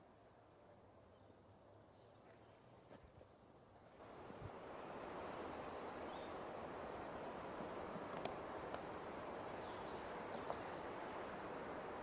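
Quiet outdoor forest ambience that steps up about four seconds in to a steady rustling hiss. A few faint high bird chirps and light clicks sound over it.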